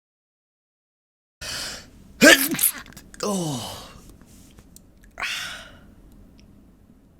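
A person sneezing. After silence, a sharp in-breath comes about a second and a half in, then a loud pitched sneeze just after two seconds, a falling vocal sound right after it, and a shorter noisy burst about five seconds in.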